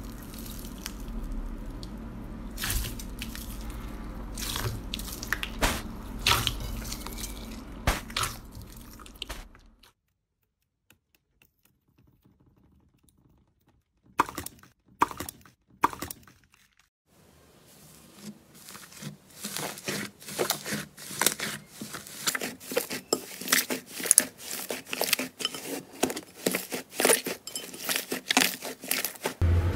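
Slime pressed and squeezed by hand, crackling and popping. It starts over a low hum, goes almost silent about ten seconds in, gives a few sharp clicks around fifteen seconds, then turns to dense, fast crackling through the last twelve seconds.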